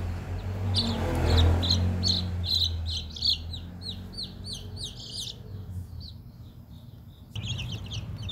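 Chicks peeping: rapid short chirps that fall in pitch, several a second, over a steady low hum, louder near the end.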